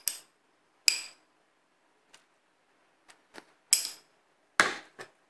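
Metal spoon clinking and scraping against a small ceramic bowl: four clear, ringing clinks spread over a few seconds, with a few faint ticks between them and a louder, fuller clink near the end.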